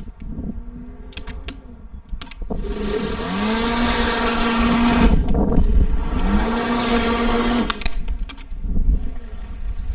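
Ozito PXC 36V cordless lawn mower's electric motor spinning up with a rising whine and running steadily for about two seconds under a wide hiss, then stopping. It spins up again for about another second and a half before cutting off. A few clicks come before the first start.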